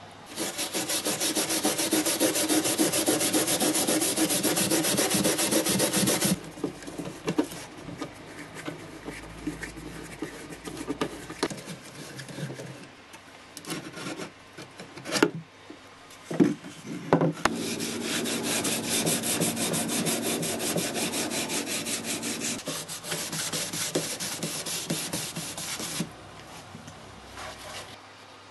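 Wooden boards being scrubbed hard by hand with rapid back-and-forth strokes: a dense scratchy rubbing for about the first six seconds, then again from about 17 s until near the end, with a few sharp knocks and lighter scuffs in the pause between.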